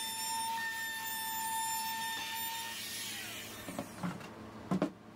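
Compact router with a flush-trim bit running on plywood, a steady high whine that is switched off about three seconds in and spins down. A few light knocks follow as the plywood panel is handled.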